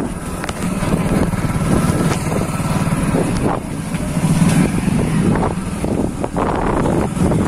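Motorcycle engine running steadily while the bike is ridden along a lane, with wind buffeting the microphone and a few short knocks.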